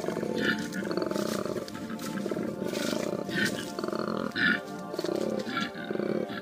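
Deep, repeated calls of a large wild animal, pulsing every half second or so, over background music.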